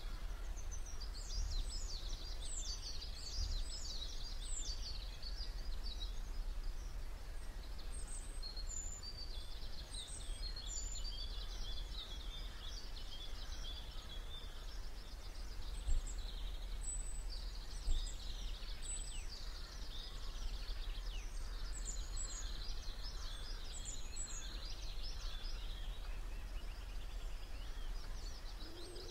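Many thin, high bird chirps and trills keep going over a steady low rumble, with two short knocks about halfway through.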